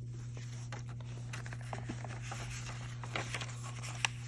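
A paperback picture book being handled and its cover opened: soft paper rustling with a few light taps, over a steady low hum.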